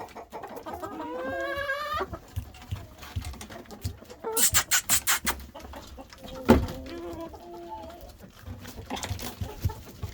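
Domestic hens clucking, with a drawn-out rising call in the first two seconds and more short calls after the middle. A quick run of sharp taps comes a little over four seconds in, and a single louder knock about six and a half seconds in.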